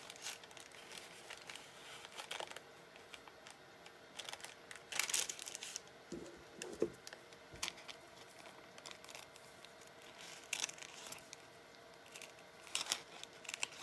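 Thin paper and fabric rustling and crinkling as they are handled, in short scattered bursts, with a few scissor snips near the end.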